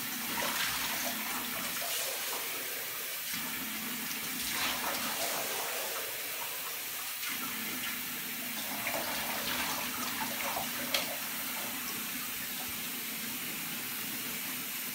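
Tap running steadily into a bathtub, with water poured from a plastic tub splashing over a small dog's back several times.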